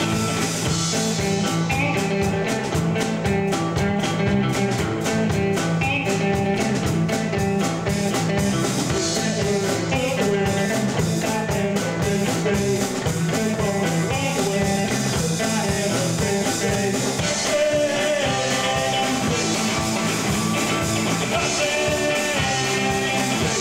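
Live rock band playing: electric guitar, bass guitar and drums, with a voice singing over them.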